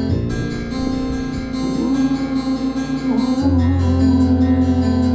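Instrumental music from a band with electric bass and guitar playing the closing bars of the song after the last chorus, with a deep bass note returning about three and a half seconds in.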